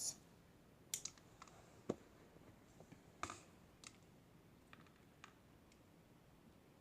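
Scissors snipping rubber bands into tiny pieces: a handful of short, sharp snips at an uneven pace.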